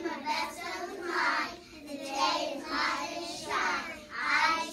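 A group of young children reciting the Pledge of Allegiance together in unison, phrase by phrase.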